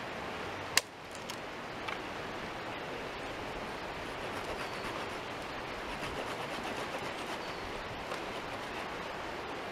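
Steady rush of a fast-flowing creek. A single sharp snap of a dry stick comes a little under a second in, with a couple of faint clicks from handled sticks soon after.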